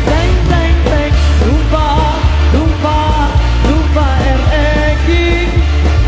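Live band playing an upbeat pop-rock song, loud, with heavy bass under a gliding melody line.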